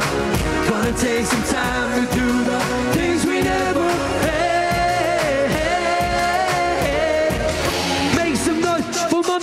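Live pop music: a drum beat under a voice singing a wavering, held melody.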